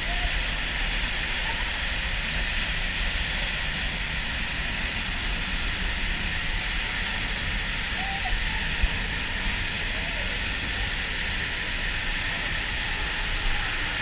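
Pulhapanzak waterfall's falling water: a steady hiss with a low rumble beneath it.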